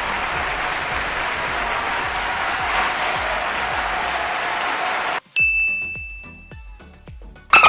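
Applause sound effect that cuts off about five seconds in, followed by a single bright bell ding that rings and fades away.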